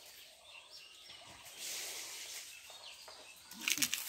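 Quiet outdoor garden ambience with faint bird chirps and a soft hiss. Near the end there is a short rustle with a brief low voice-like sound.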